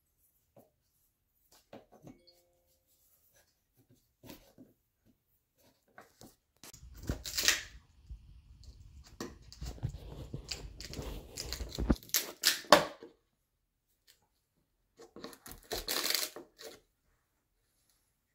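Small crowbar prying at the nailed-shut lid of a pine gift crate: wood creaking and cracking in a long spell from about seven seconds in, with a sharp crack at its end, then a second shorter spell. Light taps and clicks of the bar on the wood come first.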